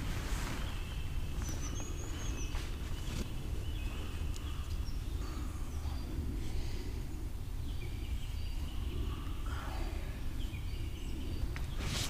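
Several woodland birds chirping and giving short whistled calls over a steady low rumble, with a brief rustle near the start and another near the end as someone shifts in a hammock.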